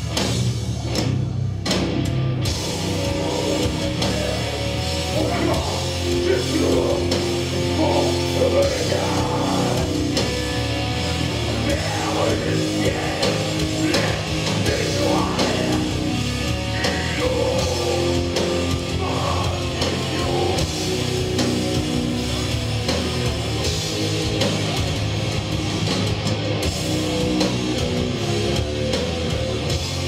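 Live thrash metal band playing loud and without a break: distorted electric guitars over a drum kit.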